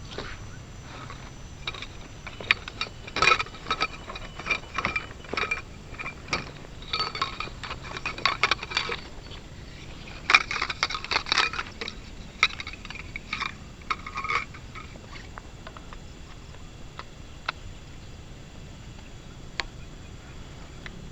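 Light metallic clinks and taps in irregular clusters, dying down to a few isolated ticks after about fifteen seconds.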